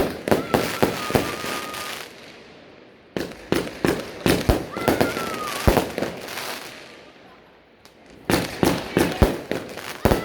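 Small fireworks going off in three quick volleys of rapid sharp cracks and bangs, each lasting two to three seconds, with short pauses between them.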